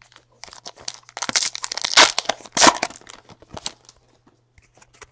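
A trading card pack's wrapper being torn open and crinkled, a run of ripping sounds with the loudest tears about two seconds in, then a few small crinkles as the cards come out.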